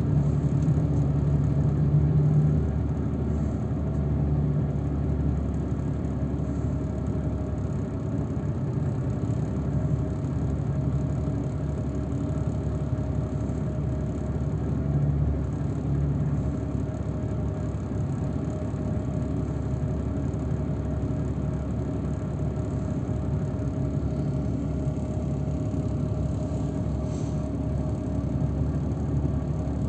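Steady engine and road noise heard from inside a moving transfer vehicle, with a low drone and a faint steady hum, a little louder in the first few seconds.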